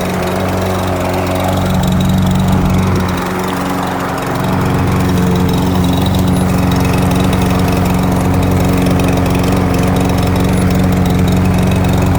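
Troy-Bilt walk-behind lawn mower's Briggs & Stratton 550EX engine running steadily while mowing down tall weeds, with a brief dip in loudness a few seconds in.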